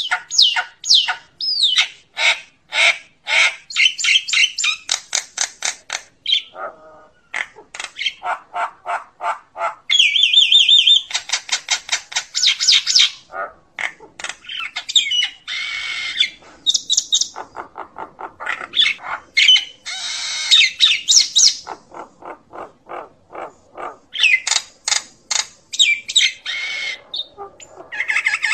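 Common myna (Acridotheres tristis) calling to its flock: fast runs of repeated harsh chattering notes mixed with squawks and a few whistled notes, in phrases broken by short pauses.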